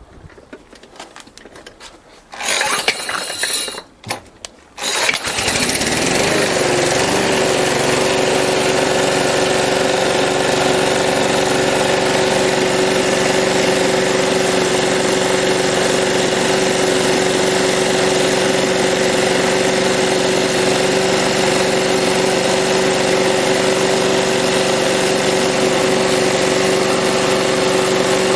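Small petrol lawn mower engine pull-started: it fires briefly about two seconds in, falters, then catches and runs steadily at speed.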